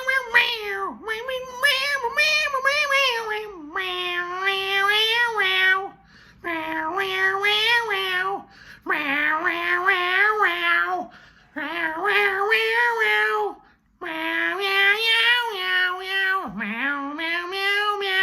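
A man imitating a cat, meowing and screeching in long sung phrases in time to a song that cannot be heard. About six phrases of roughly two seconds each, with short breaks between them.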